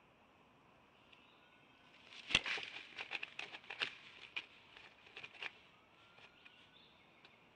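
Bald eagle moving on its stick nest: a burst of rustling and crackling twigs about two seconds in, opening with one sharp thump and dying away after three or four seconds.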